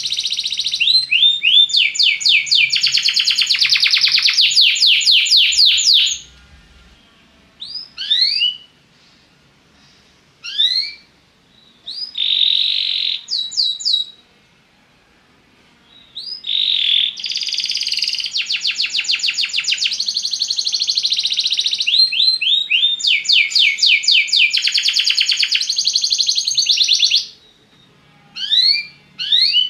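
Belgian canary singing: long phrases of rapid, trilled repeated notes, each held for several seconds. Between them come pauses of a few seconds with only a few short rising notes.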